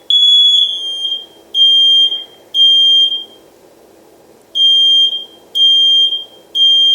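Combination smoke and carbon monoxide alarm sounding its test signal with its test button pressed: six loud, high-pitched beeps about a second apart, with a pause of about a second and a half after the third. Sounding on test shows the alarm is working.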